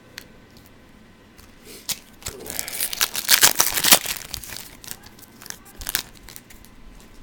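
Foil wrapper of a trading card pack being torn open and crinkled by hand. There is a dense crackling rustle for about two seconds in the middle, with a few lighter crinkles before and after.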